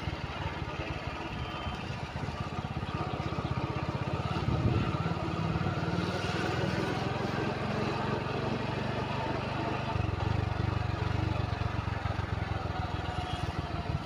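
Motorcycle engine running steadily at low speed as it rides over a rough dirt road, its exhaust giving a quick, even pulsing, with road and wind noise over it.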